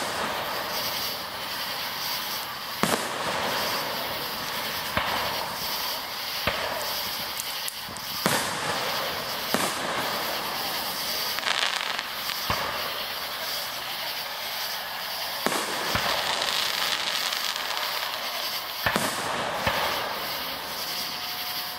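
Aerial firework shells bursting one after another, with sharp bangs every one to three seconds over a continuous hiss.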